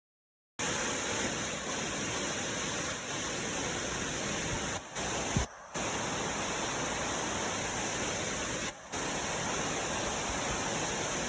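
Steady rushing of river water, the Aragon River running fast. It drops out briefly three times, and there is one sharp click about five seconds in.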